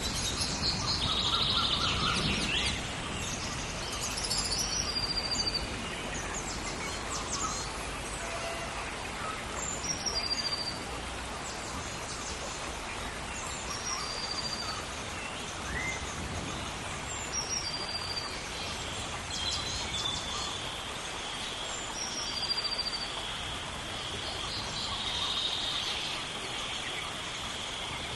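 Rainforest ambience: steady rain hiss, with a bird repeating a short high call every few seconds.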